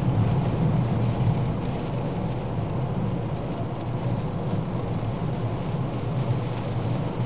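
Steady road noise inside a small hatchback's cabin on the move: a low engine and drivetrain drone with tyre and wind hiss over it, on a rain-soaked road.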